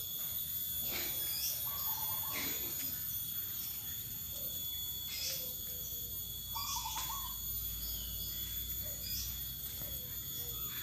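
Zebra doves (perkutut) cooing, a short stepped phrase repeated about every four to five seconds, with faint chirps of other birds.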